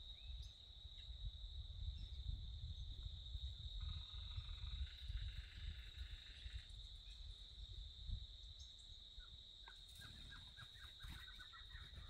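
Steady high-pitched insect drone over a low rumble, with bird calls: a patterned call about four to six and a half seconds in, and a rapid run of short descending notes, about five a second, near the end.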